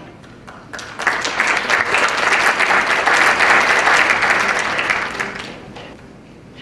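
Audience applauding: a few scattered claps, then full applause from about a second in that dies away near the end.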